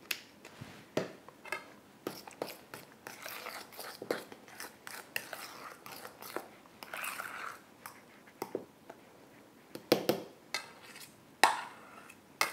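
A pepper mill grinding over a metal bowl, then a soft camembert cheese spread being mashed and stirred in the bowl: irregular soft scrapes and clicks, denser in the middle, with a few louder knocks of the spoon against the metal bowl near the end.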